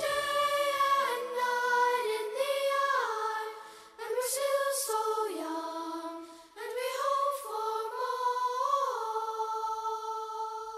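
Slow vocal music: several voices singing a harmonised phrase in a few slow swells, ending on a held chord that fades away.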